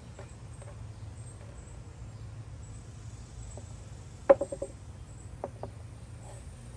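Knife knocking and tapping on a plastic cutting board while cutting up stingray wing: one sharp knock about four seconds in followed by a few quick taps, with a few lighter ticks elsewhere. Under it a steady low hum and faint high chirping.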